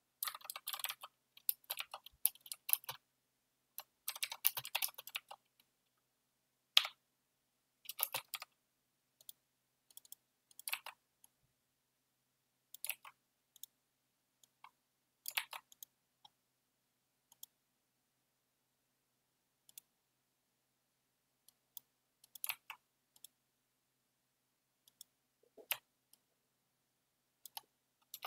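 Computer keyboard typing in two quick bursts, then scattered single key presses and mouse clicks spaced a second or more apart.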